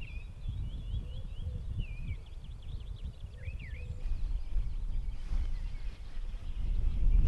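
Wild songbirds singing and chirping, a run of quick warbling notes through the first few seconds, over a steady low rumble that grows louder near the end.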